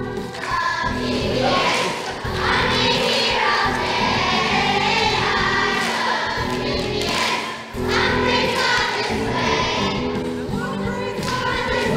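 Christian song for children: music with a group of voices singing.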